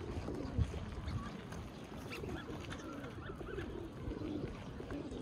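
Birds calling: low, wavering cooing repeated throughout, with a few short high chirps, over a steady low rumble.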